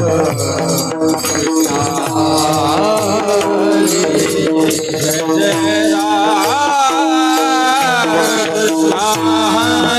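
Devotional bhajan sung by a male singer, the melody sliding and ornamented, over tabla, a rattling percussion and a steady held drone tone.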